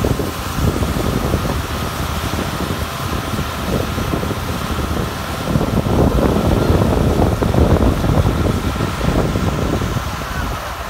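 A Z-WCSF300 reverse circulation drilling rig running, its air blasting soil cuttings out of the discharge in a steady rushing noise, with a faint high whine above it. The noise swells for a couple of seconds past the middle.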